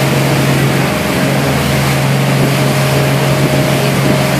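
Twin 225 hp outboard motors running steadily at cruising speed, a constant drone over the rushing hiss of the churning wake.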